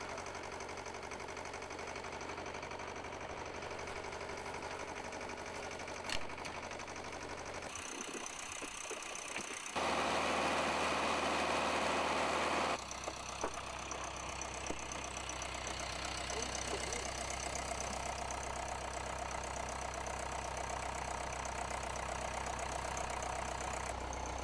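Engine-driven machinery running steadily with a low hum. Near the middle comes about three seconds of loud, even rushing noise, and a sharp click sounds about six seconds in.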